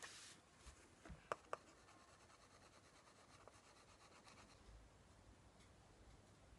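Faint rubbing and scratching on a painted glass pane: a tissue wiping paint off the glass at the start, two sharp taps about a second and a half in, then a tool scratching lightly through the paint layer.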